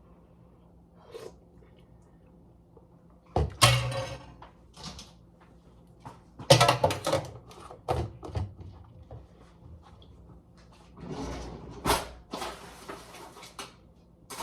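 Kitchen cupboard doors and drawers opening and closing, with scattered knocks and clatter as things are handled, and a longer stretch of rustling noise near the end.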